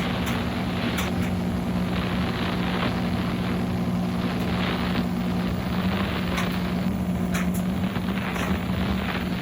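Midea 13 kg washing machine running, its motor giving a steady low hum with even mechanical noise over it.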